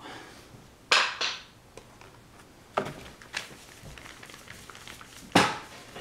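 Four sharp knocks and taps from a wooden-handled brush and a plastic paint tray being handled on a tabletop, the loudest about a second in and near the end, with faint scraping of the brush between them.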